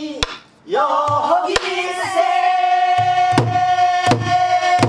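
A woman singing a Korean folk song (minyo) in a strong traditional voice, drawing a breath about half a second in and then holding one long high note through the second half. She accompanies herself on a buk barrel drum, with sharp stick strikes and low thumps beating out the rhythm.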